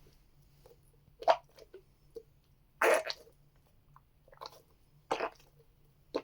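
Squishy toys being squeezed: about five short, separate squishing sounds a second or so apart, the one about three seconds in the longest.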